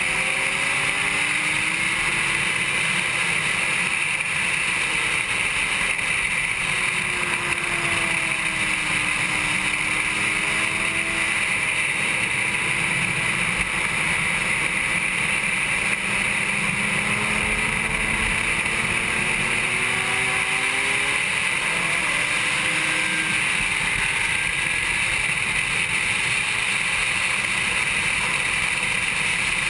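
2007 Honda CBR600RR's inline-four engine heard from an onboard camera at racing speed, its pitch rising and falling with throttle and gear changes, under a steady rush of wind noise.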